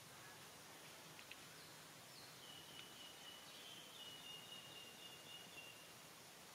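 Near silence: faint outdoor ambience. A faint, high, thin tone begins about two and a half seconds in and holds for about three and a half seconds, sinking slightly in pitch, with a couple of tiny clicks before it.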